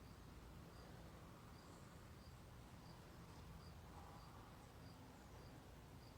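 Near silence: a faint low rumble, with a faint, high, short chirp repeating evenly about every two-thirds of a second.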